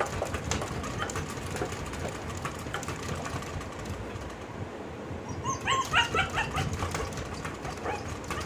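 German shepherd puppy whining and yipping to be let back in, with short high cries near the start and a quick run of them about six seconds in. His paws scratch and tap against the glass sliding window.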